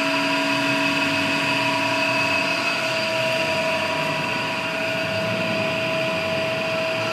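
TOS SN71C engine lathe running under power, its headstock gearbox giving a steady whine made of several tones. One lower tone drops out about a third of the way through.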